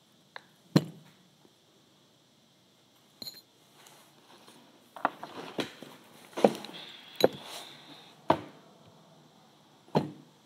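Objects being put down and handled on a tabletop: a sharp knock near the start, a run of knocks and scuffs in the middle, and a last knock near the end. A brief high beep comes about three seconds in.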